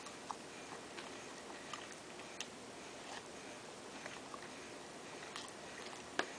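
Faint, irregular small clicks and ticks from eating and handling food, with one sharper click near the end, over quiet room hiss.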